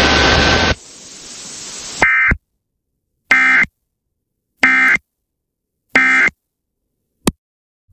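Emergency Alert System end-of-message data bursts over a radio stream: four short, identical buzzing bursts about 1.3 seconds apart, marking the end of the alert. Before them comes about two seconds of static hiss, and a brief click follows near the end.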